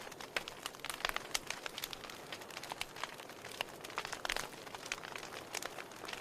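Wood fire crackling in a fireplace: irregular sharp pops and snaps, several a second, over a soft hiss. A cluster of louder snaps comes a little past the middle.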